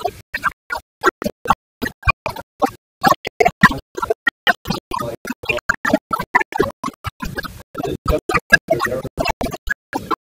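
A man's voice through a handheld microphone, broken into rapid stuttering fragments by audio dropouts, several bursts a second with gaps of silence between them, so no words come through.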